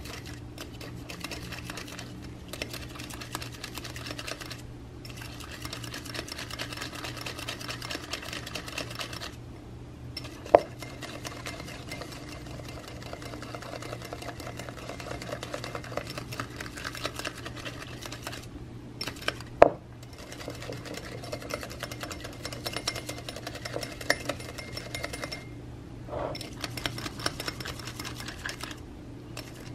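Small coil whisk rattling and scraping rapidly against a ceramic bowl as gelatin is whisked into hot water, in stretches broken by brief pauses. Two sharp knocks stand out, about a third and two-thirds of the way through.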